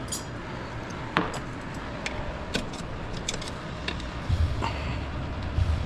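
Scattered light metallic clicks and clinks of hand tools and parts being handled, with a few dull low thumps near the end.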